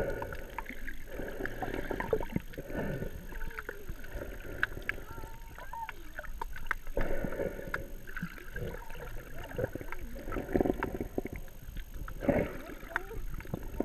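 Muffled underwater sound heard through a GoPro's waterproof housing: water sloshing and gurgling with scattered small clicks as the snorkeler swims over the seabed.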